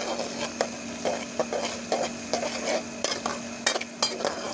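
Sliced onions sizzling in hot ghee in a metal pot while being fried to light brown, stirred with a metal spoon that clicks and scrapes against the pot many times. A steady low hum runs underneath.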